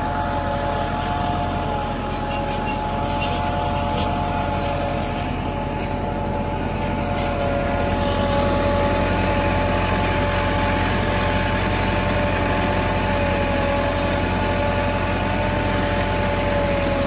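Farm tractor's diesel engine running steadily as the tractor drives along, a low drone with a steady whine above it.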